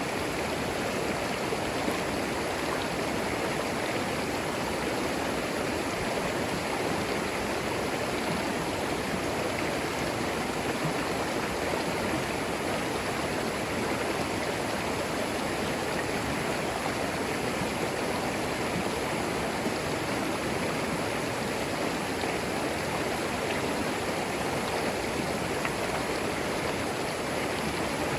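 Shallow forest creek flowing over stones: a steady babbling water rush.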